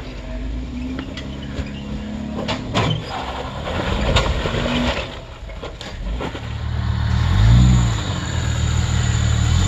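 Jeep Wrangler engine running at low revs while crawling over sandstone ledges, with sharp knocks and crunches of tyres on rock between about two and four and a half seconds in. About three-quarters of the way through, a Jeep engine revs up and back down.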